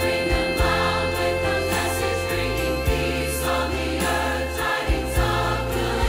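Christmas choral music: a choir with orchestral accompaniment, over a long held note and sustained bass notes.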